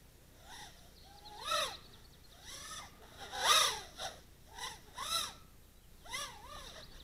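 Brushless motors of a 100 mm micro quadcopter on 1103 motors, whining in a string of short throttle bursts, each rising and then falling in pitch.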